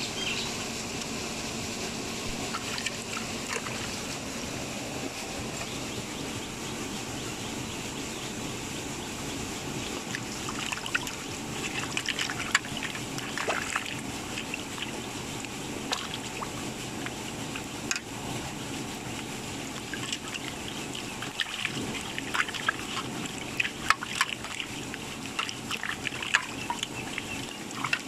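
Water sloshing and splashing in an aluminium bowl as a whole plucked chicken is rubbed and washed by hand, over a steady trickle of water. The splashes grow frequent from about a third of the way in.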